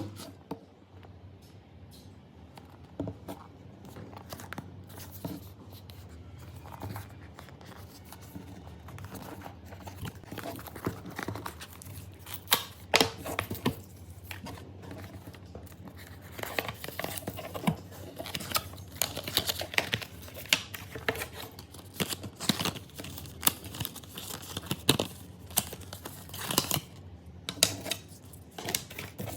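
A smartphone box being opened by hand: paper and plastic tearing, packaging crinkling, and many sharp clicks and scrapes of cardboard and parts being handled. The handling noises become busier and louder about halfway through.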